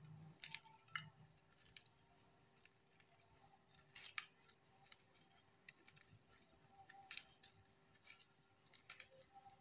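Heated dried red chillies being crushed by hand in a stainless-steel bowl: faint, irregular crisp crackles and clicks as the brittle pods break up.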